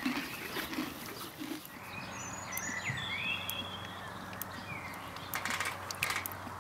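A pony grazing, tearing and chewing grass, with soft munching sounds. After about two seconds come a few bird chirps and a low steady hum, then scattered small clicks and splashes of an animal drinking water near the end.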